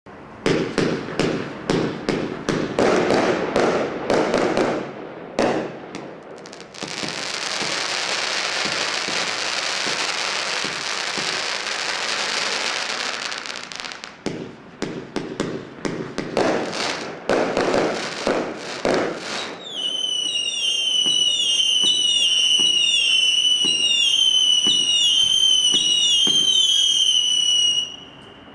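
Black Cat Chimera 55-shot firework cake firing: rapid volleys of sharp bangs, then a steady hiss for about six seconds, then more bangs. After that comes a run of whistling shots, the whistles overlapping and each falling in pitch, until they stop abruptly shortly before the end.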